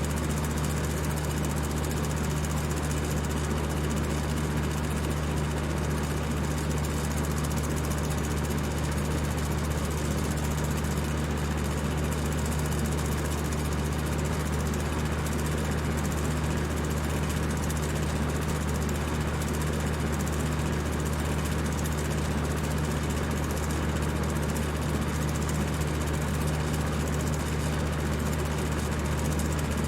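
High-speed fan running steadily: an even rush of air with a constant low hum underneath.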